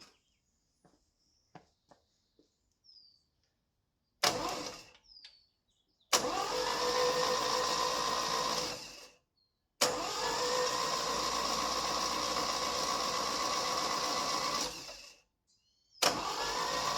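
Saab Sonett's starter motor cranking the engine: a short burst, then three long cranking runs, each starting suddenly with a whine that rises as the starter spins up, then holds steady. The starter now turns the engine after a bad ground on its body was fixed.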